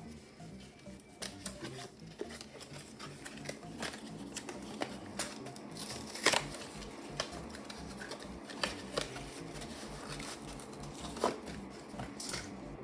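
A thin cardboard watch box being handled and opened: a series of short scrapes, taps and clicks of card against card and fingers, sharpest about six seconds in and again about eleven seconds in. Quiet background music plays underneath.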